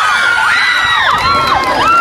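Crowd of schoolchildren cheering and screaming, many high voices overlapping in long held shouts.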